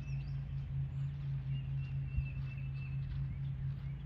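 Outdoor ambience: a steady low hum with a low rumble of wind on the microphone, and faint bird chirps above it.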